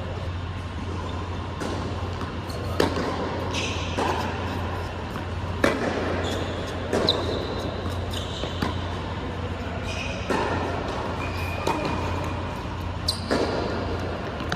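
Tennis rally on an indoor hard court: racket strikes and ball bounces about every second and a half, with short sneaker squeaks on the court surface, over a steady low hum.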